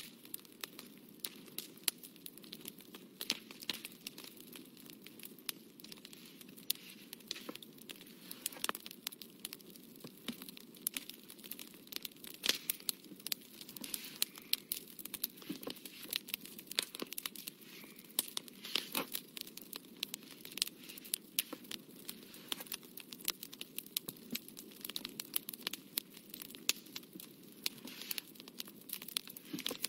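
Fine watercolour brush dabbing and stroking on textured watercolour paper close to the microphone: irregular small dry scratches and clicks, over a steady low background hum.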